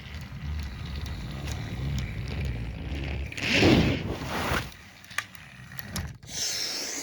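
A steam engine running along with a low rumble, then a loud hiss of steam about three and a half seconds in and a second, higher hiss near the end.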